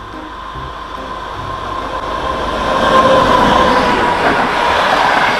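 Locomotive-hauled passenger train passing close by: the rumble and wheel noise on the rails build up and are loudest from about three seconds in, as the coaches go past.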